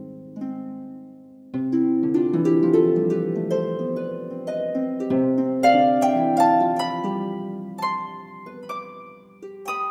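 Background music of plucked string notes, several ringing at once and fading away, with a new phrase starting about a second and a half in.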